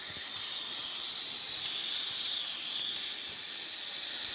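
Steam hissing steadily from the open cylinder drain cocks of a 7¼-inch gauge live-steam locomotive standing still: the cylinders are being purged of condensate and warmed before it moves off.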